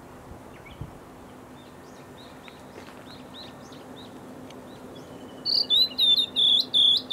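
Male blue-and-white flycatcher singing: a loud phrase of clear, repeated whistled notes starting about five and a half seconds in, after a stretch of only faint, scattered chirps.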